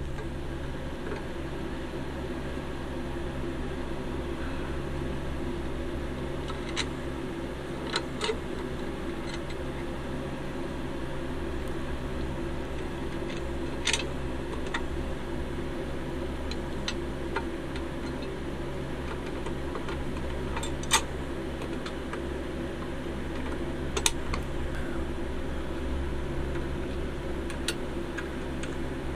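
Steady low machine hum throughout, with a handful of short, sharp clicks and taps as the parts of a toy van, its body and a chrome trim piece, are handled and fitted together.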